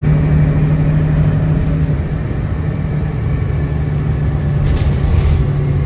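Steady low rumble and hum of a moving vehicle, with faint high squeaks twice: about a second in and again near the end.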